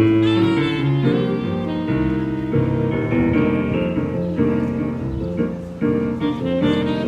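Keyboard playing a flowing instrumental passage of chords over a moving bass line, with quick note changes throughout.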